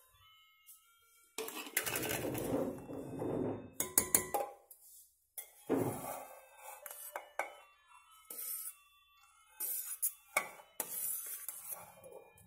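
Stainless-steel cookware clinking and scraping in irregular bursts as biryani is layered: potatoes put into a steel pot and rice tipped in from a steel plate, with the sharpest clinks about four seconds in.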